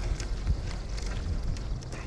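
Wind buffeting the microphone in a low, uneven rumble, with scattered short light ticks over it.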